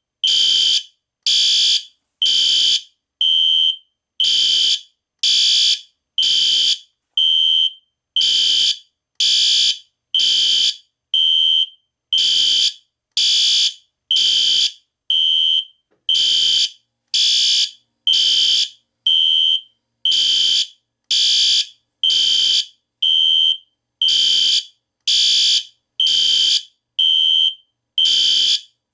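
System Sensor SpectrAlert Classic and SpectrAlert Advance fire alarm horns beeping loudly about once a second, unsynced, so their beeps fall out of step with each other: some are a clean high tone, others harsher.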